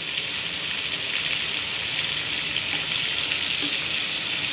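Yogurt-marinated chicken pieces sizzling steadily in shallow oil in a kadai over a medium-to-low flame, with light crackling, as a metal spatula turns the pieces.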